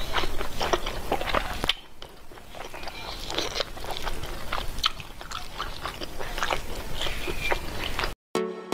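Close-miked eating sounds: wet chewing and mouth smacks, with fingers squishing into rice, in quick irregular clicks. About two seconds in the sound drops to quieter, sparser chewing. Near the end it cuts off and electronic music begins.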